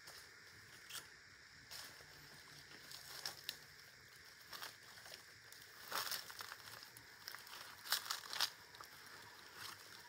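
Faint, scattered crunching and rustling of footsteps through dry leaf litter and undergrowth, a little more frequent in the second half.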